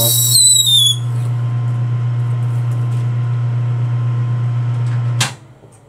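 Metal lathe running steadily with a low motor hum while drilling Delrin; a high squeal from the drill in the plastic drops in pitch and stops about a second in as the drill is backed out of the hole. About five seconds in there is a click and the lathe's running sound falls away sharply.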